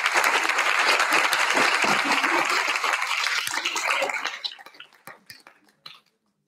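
Small audience applauding, the clapping dying away about four to five seconds in.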